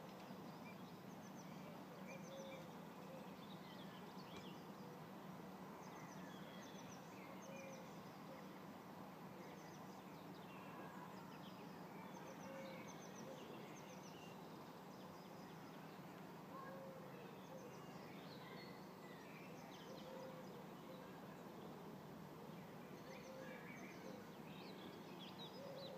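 Faint outdoor ambience: scattered songbird chirps and calls with short lower notes every few seconds, over a low steady background hum.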